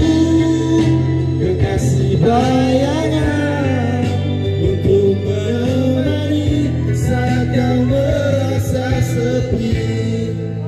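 A man singing a melody into a microphone over a guitar-backed song accompaniment.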